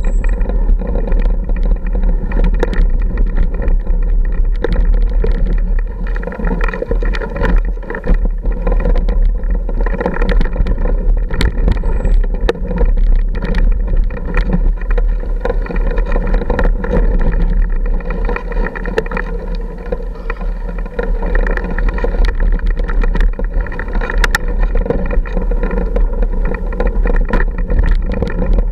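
Off-road motorcycle engine running steadily at low speed, with frequent clicks and knocks as the bike jolts over rocks.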